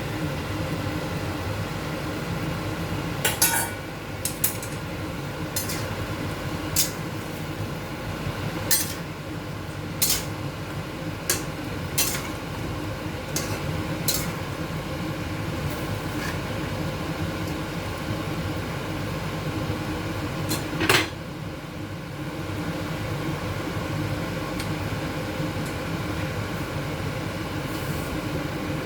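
A cooking utensil clinking and knocking against a pot of chicken coconut curry. The clinks are sharp and irregular, every second or two, over a steady low hum, and the loudest clank comes about 21 seconds in.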